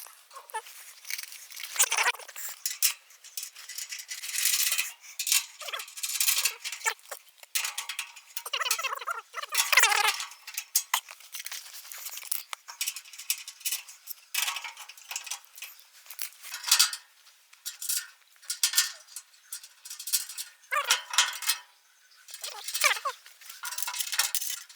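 Irregular metallic clinks, jangles and rattles of tools and machine parts being handled while a rice milling machine is assembled, with a few short squeaks among them.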